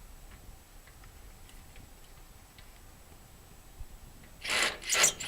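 Faint scattered ticks, then about four and a half seconds in two loud, short clanks of sheet metal as the air conditioner's coil assembly is worked free, the second the louder.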